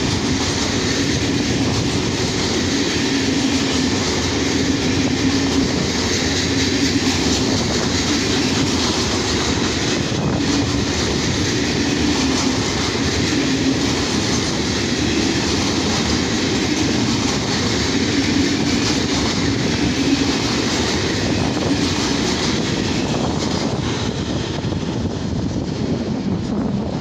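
A long freight train of loaded log wagons rolling past, steel wheels running steadily over the rails, easing off slightly near the end as the last wagons clear.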